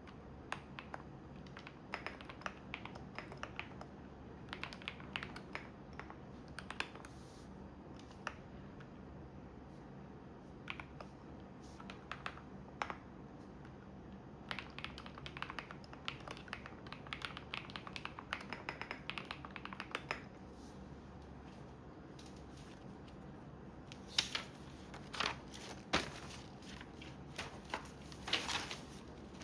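Typing on a computer keyboard in runs of quick key clicks, over the steady low hum of a washing machine running. The typing pauses for a few seconds, and a few louder separate clicks and knocks come near the end.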